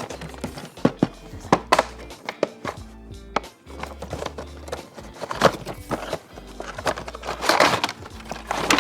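Background music with a low bass line, over many sharp clicks and taps of plastic toys and packaging being handled, with a longer crackling rustle about seven and a half seconds in.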